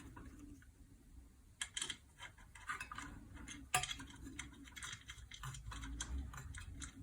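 Irregular small clicks and taps of metal fan parts and screws being handled while a ceiling fan blade is fitted to its bracket, with one louder knock near the middle.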